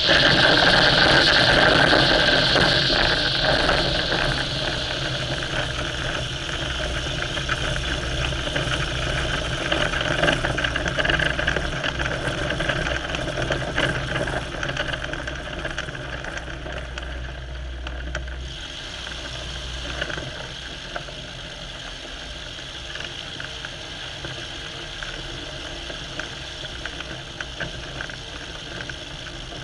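Light aircraft engine running and throttling back: loud at first, it drops to a quieter idle over the first few seconds, and a low hum cuts out about two-thirds of the way through.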